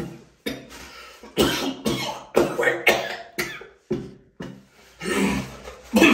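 A man coughing in a long fit, about a dozen hard coughs over six seconds, brought on by a bite of spicy fried chicken.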